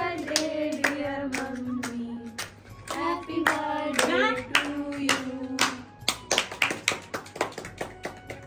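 A small group clapping in a quick, even rhythm, about three claps a second. For the first six seconds, voices sing two long drawn-out notes over the clapping.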